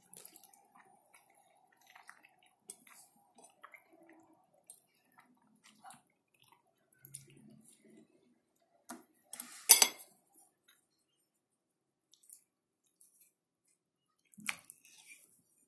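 A metal fork clinking and scraping on a ceramic plate while cutting into stuffed peppers, with scattered small clicks and soft wet eating sounds. The loudest clatter comes just under ten seconds in, and another sharp clink about a second before the end.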